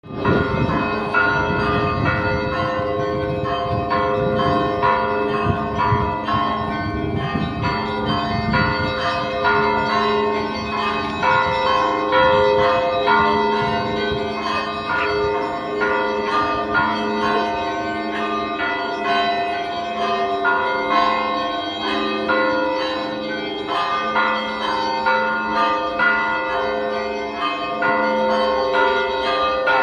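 Russian Orthodox church bells ringing: many bells struck in quick succession, smaller bells in rapid patterns over the sustained ringing of larger ones. A low rumble sits under the bells for about the first eight seconds.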